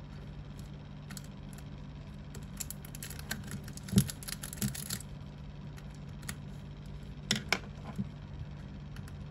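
Zippo lighters being handled: a run of light metal clicks with several sharper knocks around the middle and later, over a steady low hum.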